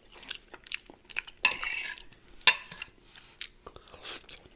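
Cutlery clinking and scraping against a plate in irregular strokes, the loudest a sharp clink about two and a half seconds in.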